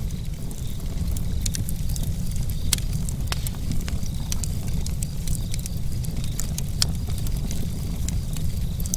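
Campfire burning, wood crackling with irregular sharp pops over a steady low rumble.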